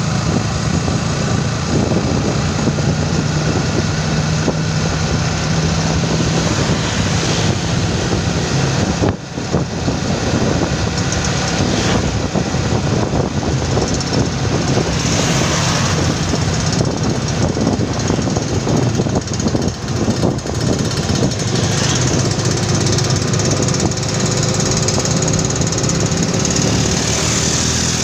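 Motorcycle engine running steadily at cruising speed, with wind rushing over the microphone; the sound dips briefly about nine seconds in.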